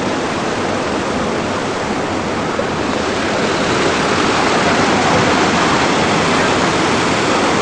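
Waterfall: loud, steady rushing of falling water, growing slightly louder about three seconds in.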